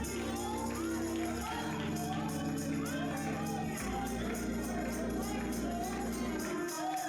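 Gospel worship music: a tambourine keeps a steady beat over held bass notes and a sung melody.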